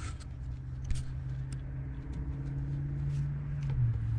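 A steady low engine-like hum that starts about a second in and rises slightly in pitch near the end, with a few faint clicks.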